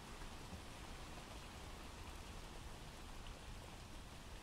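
Faint, steady rain falling: a recorded rain ambience playing as background noise.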